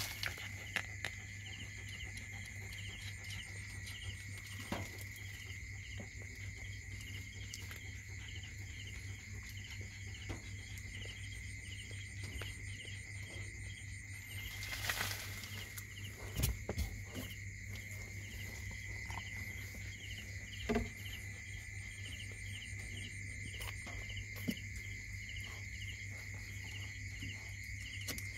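Crickets chirping in a steady, regular pulse over a constant high insect drone and a low hum, with a few faint clicks and knocks scattered through.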